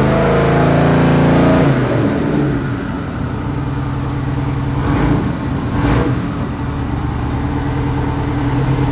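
Twin-turbo 408 cubic-inch LS V8 running at a steady idle of about 1,180 rpm. It is louder and fuller for the first couple of seconds, then settles to a steadier idle, with two short bursts of noise about a second apart near the middle.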